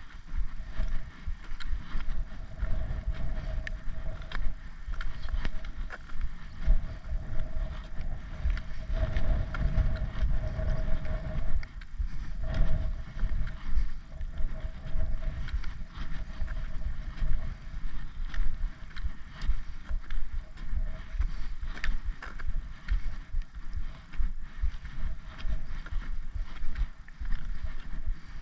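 Wind buffeting the microphone as a hiker walks, with footsteps and trekking-pole tips tapping irregularly on a tarmac lane.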